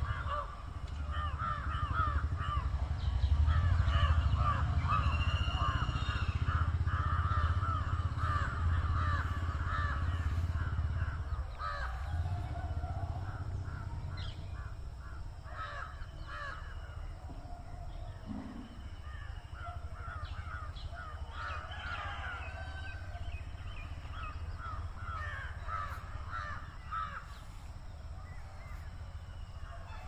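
Crows cawing and other birds calling, busiest through the first ten seconds or so and again in bouts near the end, over a low steady rumble that drops away after about eleven seconds.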